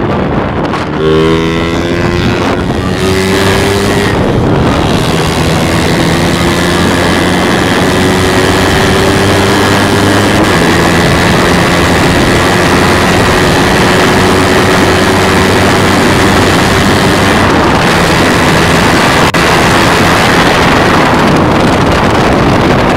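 A motorcycle engine carrying a rider and a pillion passenger pulls away, rising in pitch over the first few seconds. It then runs steadily at cruising speed, with wind noise on the microphone.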